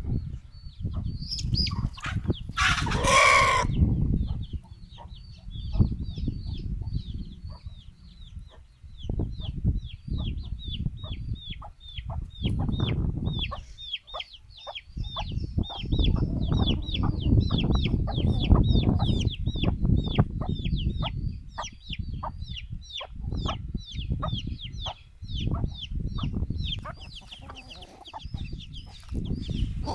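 Chicks peeping over and over in short, high, falling chirps, about three or four a second, with one brief loud call from an adult chicken about three seconds in.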